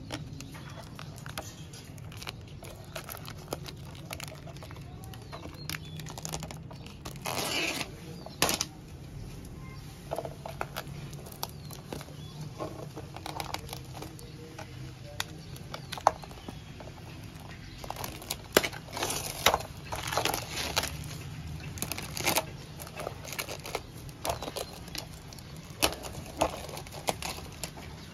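Thin plastic protective film being peeled off a skateboard deck's grip tape, crinkling and crackling in irregular bursts. There is a longer tearing rustle about a quarter of the way in and a close run of sharp crackles about two-thirds through, over a steady low hum.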